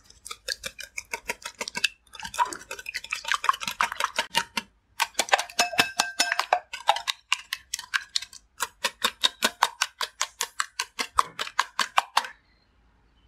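Wire whisk beating eggs, sugar and honey in a glass bowl: quick rhythmic clinks of the wires against the glass, about four or five strokes a second. It breaks off briefly twice and stops about a second before the end.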